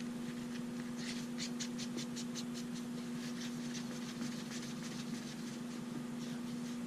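Faint scratchy rubbing and small clicks from handling small hard parts, coming in two quick runs of strokes, over a steady low hum.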